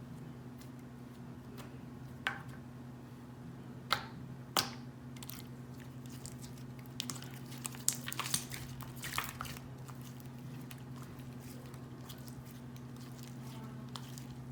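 Sticky neon slime being kneaded and mixed by hand: wet squishing with scattered sharp pops and clicks, busiest past the middle, over a steady low hum.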